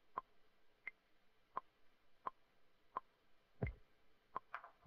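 Maschine Plus metronome clicking steadily, about 86 beats a minute, with a higher click on every fourth beat. Near the end, low drum hits come in alongside the clicks.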